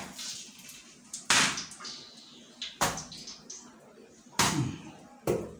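Porotta dough being slapped and beaten against a work surface: four sharp slaps, a second or so apart.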